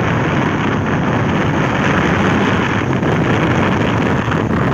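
Small Chinese motorcycle riding at steady speed: wind rushing over the microphone with the engine running underneath, a steady, even noise.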